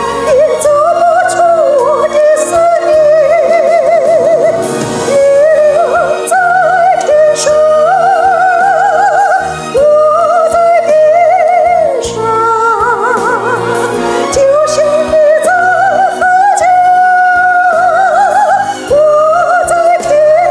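A woman singing a slow Chinese song, holding long notes with a wide vibrato.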